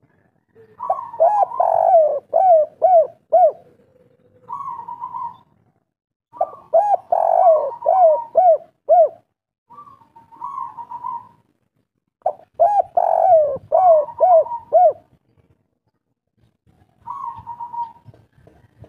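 Spotted dove (tekukur) of the local 'kuk 3' song type cooing: three full phrases, each a quick run of short arched coos followed by one or two softer drawn-out coos. A fourth phrase begins near the end.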